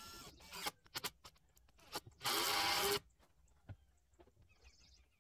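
A power tool runs in one short burst of just under a second, about two seconds in, amid scattered knocks and clicks of handling wood and tools.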